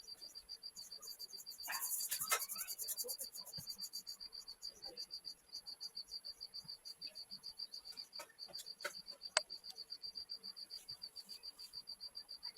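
Cricket chirping steadily, a high pulsed trill of several chirps a second, with a brief faster, higher buzz about two seconds in. A few light clicks and one sharp tick about nine seconds in.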